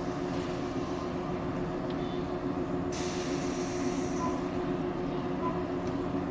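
JR 115-series electric train standing at the platform with a steady hum. About three seconds in comes a loud hiss of released compressed air lasting over a second, and a faint click follows near the end.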